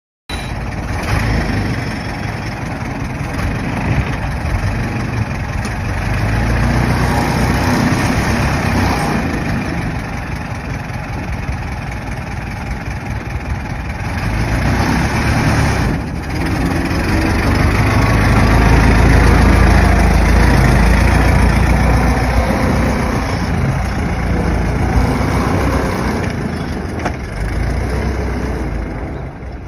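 Old car's engine running continuously, its rumble rising and falling in level and heaviest about two-thirds of the way through.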